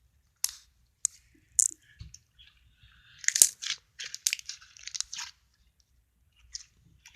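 Stretchy slime being stretched and squished by hand, giving scattered sticky clicks and crackling pops, with a denser run of them a few seconds in.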